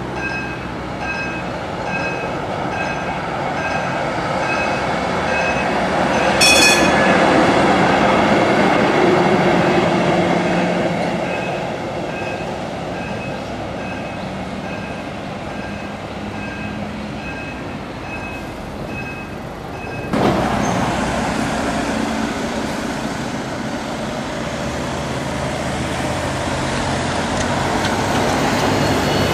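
An ex-Duisburg DÜWAG articulated tram rolling past on its rails, its wheel and running noise loudest a little after a single short ring about six seconds in. A beep repeats about twice a second underneath for the first two thirds. After an abrupt change, steady road traffic noise with another tram approaching.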